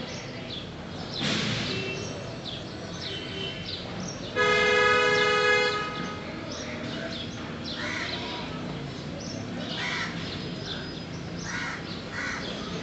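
A horn sounds once, a steady, unwavering blast of about a second and a half near the middle, over scattered bird calls.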